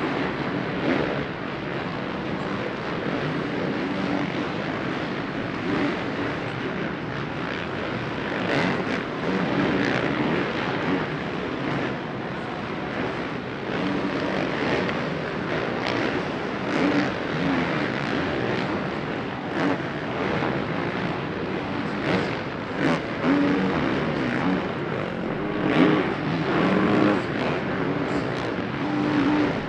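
Supercross dirt bikes racing around the track, their engines revving up and down in overlapping waves, with a louder swell near the end.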